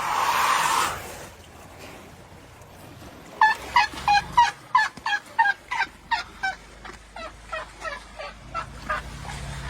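A bird calling: a long run of short, falling calls, about three a second, growing fainter toward the end. A brief rush of noise comes at the start.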